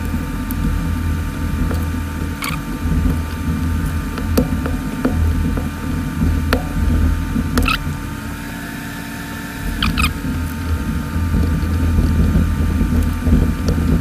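Small, scattered clicks and scrapes of hand tools and fingers on an opened smartphone as the glued-in battery is being pried out, over a steady low hum.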